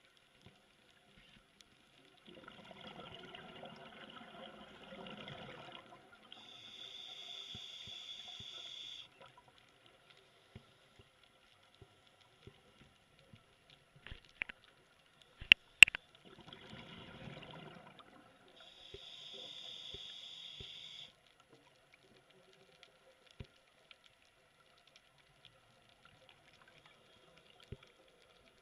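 Scuba diver breathing through a regulator underwater: a rush of exhaled bubbles followed by the hiss of an inhale, twice, about thirteen seconds apart. Between the breaths come a few sharp clicks about halfway through, the loudest sounds.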